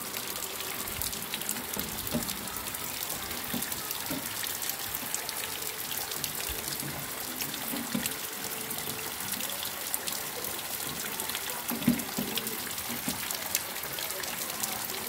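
Heavy rain falling on waterlogged ground: a steady hiss of rain with many small drop hits and splashes throughout. A single louder knock comes about twelve seconds in.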